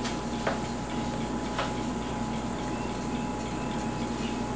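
Steady low background hum with a few faint light clicks of a spoon against the plastic tub and glass while dolloping whipped topping.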